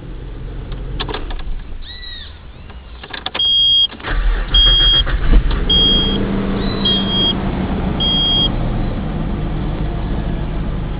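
Ignition key turned on a Nissan VG33E V6 that does not crank: a few clicks, then a warning chime beeping about five times over a steady hum that comes in about four seconds in. The engine not cranking here is taken as the sign of a faulty starter motor, not the neutral safety switch.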